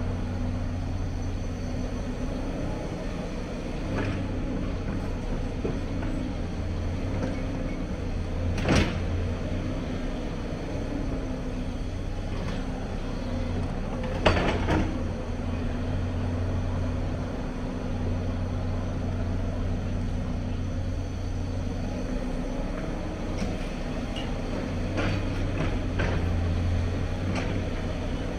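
Hyundai crawler excavator's diesel engine running steadily as it digs, its note swelling and easing with the work. Occasional sharp clanks of the bucket striking rubble, loudest about 9 and 14 seconds in.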